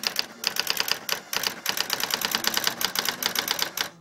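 Brother SX-14 electronic typewriter printing by itself in automatic mode: a rapid, machine-even run of character strikes, about ten a second, broken by brief pauses.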